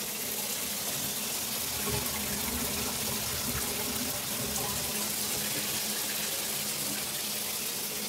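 Water spraying steadily from a Cobbe matte black handheld filtered shower head, an even hiss.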